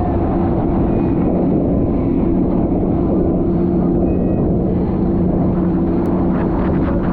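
An engine running steadily at a constant pitch, a droning hum over heavy low rumbling noise.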